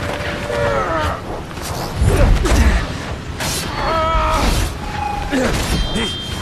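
Action-film soundtrack of a fight on top of a speeding bullet train: rushing wind and train noise, creaking and scraping metal, and strained grunts from the fighters. A loud low rumble comes about two seconds in.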